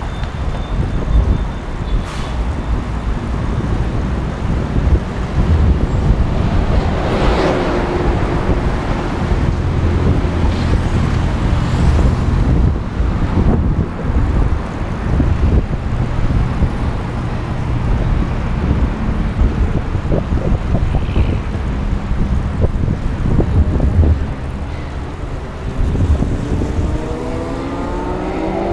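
City road traffic heard while riding a bicycle: a steady low rumble of cars, with a vehicle passing close about seven seconds in. Near the end an engine accelerates, its pitch rising.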